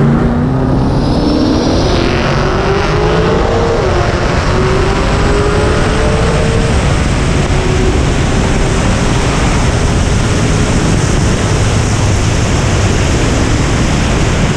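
The 1961 Buick Skylark's twin-turbo 427 cubic inch LS V8 at full throttle on a full pull. Its pitch climbs, drops once at a gear change about four seconds in, and climbs again. From about seven seconds a steady rush of wind on the hood-mounted camera covers it.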